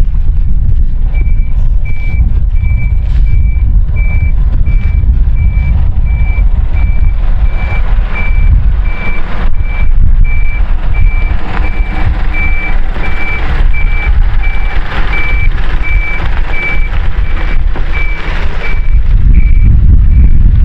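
Scania route bus reversing: its diesel engine runs steadily while its reversing alarm beeps at an even pace, one pitch, stopping near the end.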